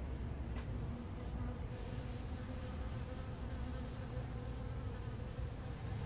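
Honey bees buzzing as they fly around honey frames, a steady faint hum over a low rumble.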